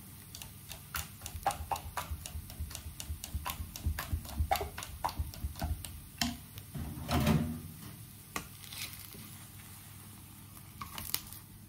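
Pancake batter being stirred in a plastic mixing bowl, the utensil clicking and tapping against the bowl in a quick, irregular series of taps for about seven seconds, then going quieter.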